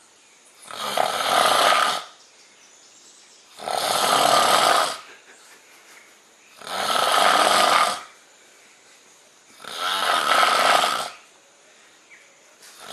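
A man putting on loud, exaggerated snoring: four long, harsh, rasping snores about three seconds apart, with a fifth starting right at the end.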